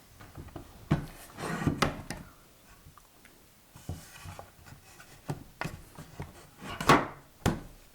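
2x4 pine bench parts being dry-fitted on floating tenons: scattered wooden knocks and rubbing as the pieces are pushed together and shifted, with the loudest knock about seven seconds in.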